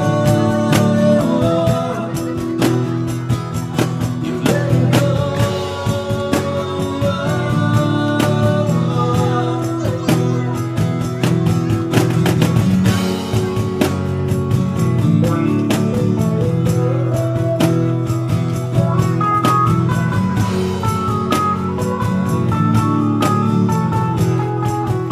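A street busker's guitar playing an instrumental passage, with a melody line over steadily strummed chords.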